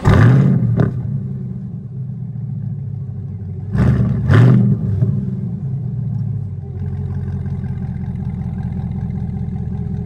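Chevrolet Corvette C8's V8 with a Borla exhaust starting up with a loud flare that falls away, a quick blip just under a second in, then two sharp revs about four seconds in before settling to a steady idle.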